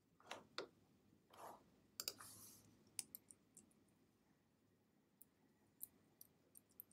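Faint, irregular clicks of a computer mouse and keyboard, with a few softer rustles in the first second and a half.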